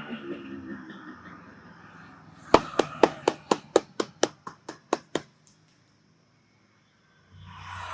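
A barber's hands striking in a head massage: about a dozen quick, sharp slaps, roughly four a second, getting fainter and then stopping. A short burst of hiss follows near the end.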